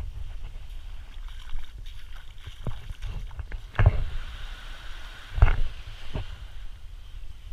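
Wind buffeting a handheld camera's microphone as a steady low rumble, with small waves washing on the shore behind. A few sharp handling knocks stand out, the loudest about four and five and a half seconds in.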